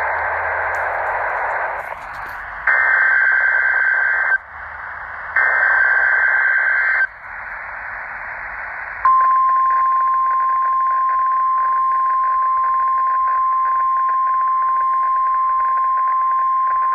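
NOAA Weather Radio broadcast of an Emergency Alert System monthly test: receiver hiss, then two loud buzzing bursts of the SAME header data code, then, about nine seconds in, the steady 1050 Hz weather radio warning alarm tone, which holds to the end.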